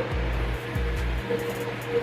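Background music with a steady beat and a low bass line.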